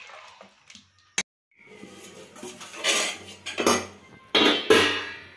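Metal utensils and lid on a steel cooking pot: a spoon scraping and clanking, then several sharp metallic clatters with ringing about three, three and a half and four and a half seconds in. The sound drops out briefly at a cut about a second in.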